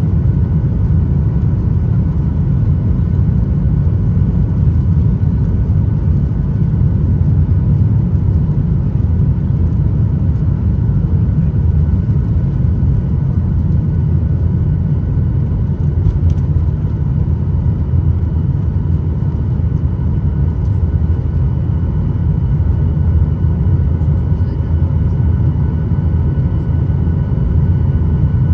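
Boeing 737-800's CFM56-7B turbofan engines at takeoff thrust, heard from inside the cabin over the wing through the takeoff roll and lift-off: a loud, steady rumble with a few faint, steady whining tones above it.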